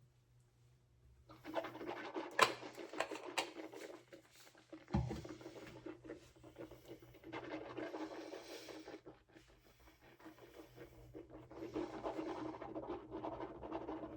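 Close handling noises: scratchy rustling, with two sharp clicks about two and three seconds in and a low thump about five seconds in.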